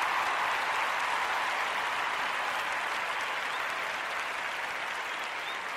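Crowd applause, an even, dense clapping that slowly fades.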